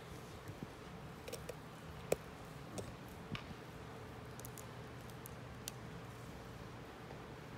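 Quiet room tone with a steady low hum, broken by about half a dozen faint, scattered clicks and taps in the first six seconds.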